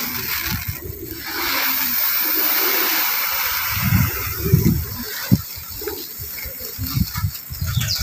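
Dried corn kernels pouring from a woven sack into a plastic tub of water: a steady rushing hiss for a few seconds, then lighter trickling. Low thumps from the sack being handled, and one sharp knock about five seconds in.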